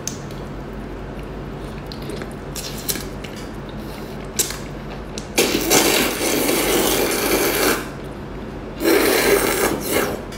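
Loud wet slurping as a chili-coated octopus tentacle is sucked into the mouth: two long slurps, about five and nine seconds in. A few small clicks come before them, over a low steady hum.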